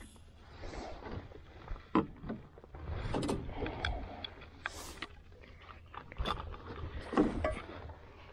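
Scattered knocks and clatter of fishing gear being handled in an aluminum boat, over a low steady rumble.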